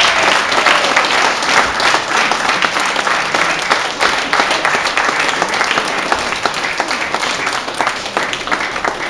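Audience applauding: a dense run of many claps that eases off slightly toward the end.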